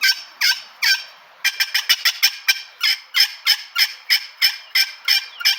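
Turkey yelps run on the black anodized aluminum surface of a mahogany pot call, the striker drawn in big circles for louder yelps: a fast, even string of sharp notes, about four a second, with a short break about a second in.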